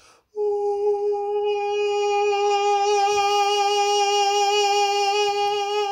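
A man sings one long, steady note in soft, round head voice, then without changing pitch or breaking turns it brighter and sharper-edged about one and a half to two seconds in. The change is a shift into interior vocal edge: the vocalis muscle sharpens the edges of the vocal folds toward each other, so the tone goes from round and soft to sharp.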